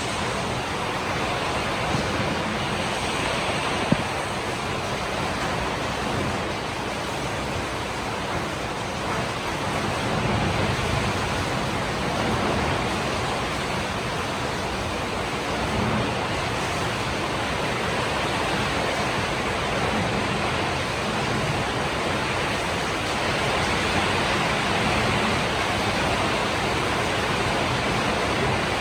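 Steady heavy rain, a dense even hiss with no let-up.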